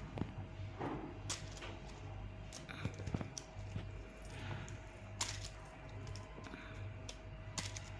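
Light, scattered clicks and taps of plastic interlocking toy pieces being handled and pressed together, a few each second or two, over a faint steady hum.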